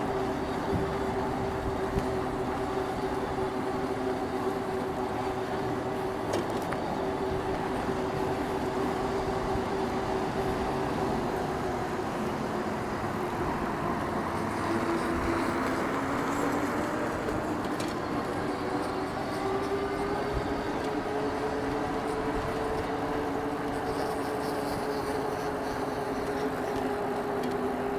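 Electric bike motor whining steadily while riding, over tyre and wind noise. The whine drops in pitch about halfway through and then climbs again as the bike slows and speeds back up.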